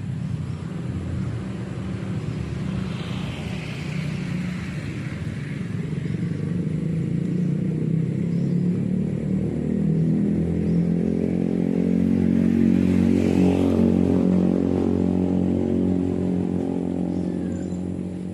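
A motor vehicle engine running. It grows louder to a peak about two-thirds of the way through, then fades a little, as a vehicle passing by does.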